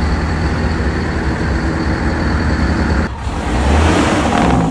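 Semi-truck diesel engines idling: a steady low rumble with a faint high whine over it for the first three seconds. The sound changes abruptly about three seconds in.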